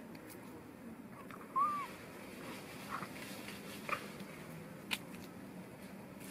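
Young macaques calling: a short arched squeaky call about a second and a half in, the loudest sound, then two brief high calls, with a sharp tap near the end.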